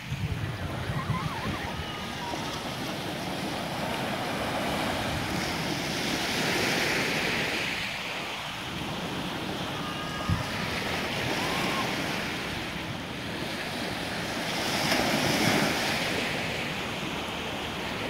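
Small sea waves breaking and washing up a sandy beach, the surf swelling and fading in slow surges about every four seconds.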